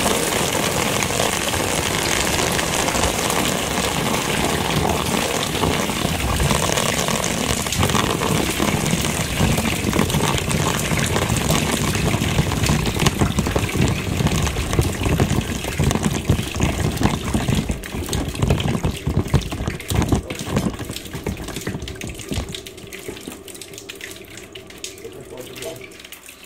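Water running and splashing down into a vessel: a steady spatter that thins about two-thirds of the way through into separate drips, fades near the end and then stops.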